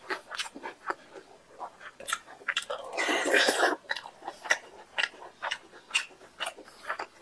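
Mouth chewing a mouthful of rice and chicken curry: a steady run of short wet smacking clicks, with a longer, louder wet noise about three seconds in.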